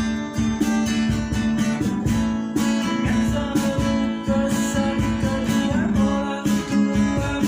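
Acoustic band music: acoustic guitars strumming and picking a melody over a steady cajon beat, with no clear singing.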